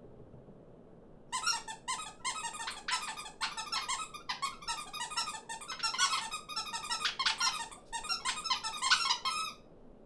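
A run of rapid, high squeaky chirps and chatters, many overlapping, made as foley for a flock of small cartoon birds on a wire. It starts about a second in and stops just before the end.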